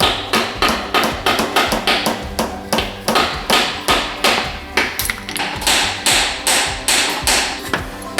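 Music with a quick, even tapping beat, about two to three sharp taps a second, over steady sustained low notes.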